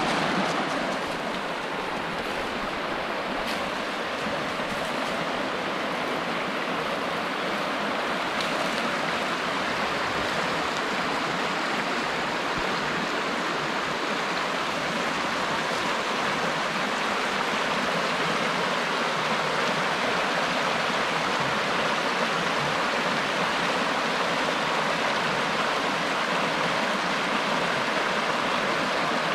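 Shallow rocky creek rushing over stones in riffles, a steady, unbroken wash of moving water.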